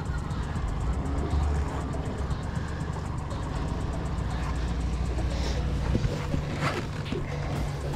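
Boat motor running steadily under way, over a steady rushing noise.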